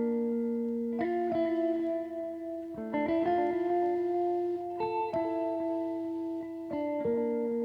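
Slow instrumental music of plucked string notes, a new phrase starting every second or two with notes that ring on.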